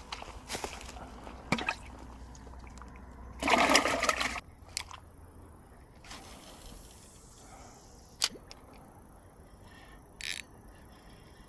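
A splash of water about three and a half seconds in, lasting about a second and the loudest sound, as a small bass goes back into the pond. Scattered sharp clicks of rod and line handling come before and after it.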